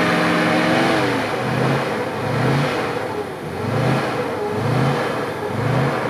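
A GAZ-66 army truck's V8 engine running under load, then revved up and dropping back about once a second as the truck works for grip in an icy, rink-slick rut on a steep snowy climb.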